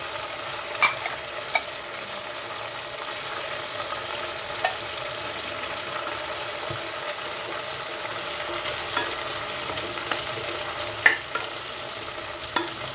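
Chopped onions sizzling in hot oil in a non-stick pan, stirred with a wooden spatula that clicks against the pan now and then, with one sharper knock about eleven seconds in.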